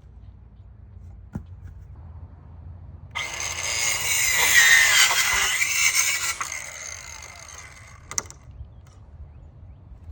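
RYOBI 18V ONE+ 4-1/2-inch cordless compact circular saw cutting through wood for about four seconds, starting about three seconds in; its whine dips in pitch midway through the cut, then winds down. A sharp click sounds about a second in and another near the end.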